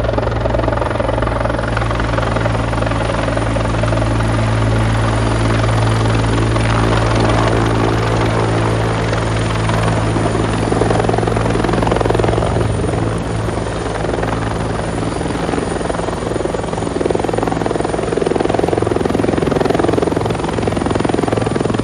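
Firefighting helicopter hovering low over a swimming pool to fill its water bucket: a loud, steady rotor and engine drone, with a rushing noise building from about halfway through as it hangs close over the water.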